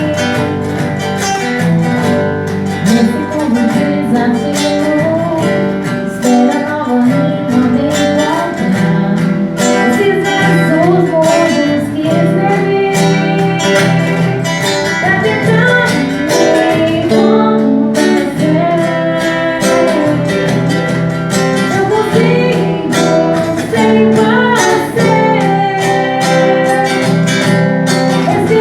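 A music group playing live: guitar with a steady beat and a singer's voice over it, continuous throughout.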